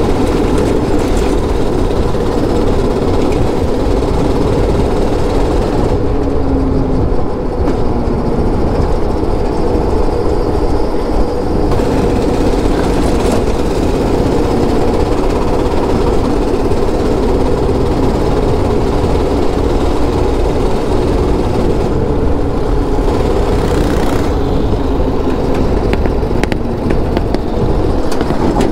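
Go-kart's small engine running steadily under load as it drives at speed, with rumbling wind noise on the microphone.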